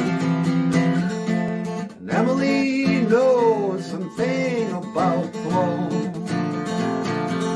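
Song with an acoustic guitar strummed steadily. About two seconds in, a voice comes in over it with long notes that slide up and down, fading again a little before the end.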